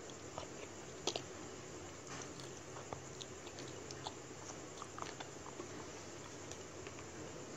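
A person chewing raw shrimp sashimi, with wet mouth smacks and short clicks scattered over a steady background hiss. There is a sharper double click about a second in.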